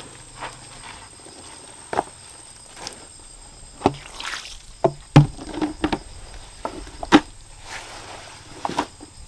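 Wet clothes being scrubbed and wrung by hand over a plastic washbasin: irregular splashes, sloshes and wet slaps of soaked fabric and dripping water, loudest twice, about five and seven seconds in.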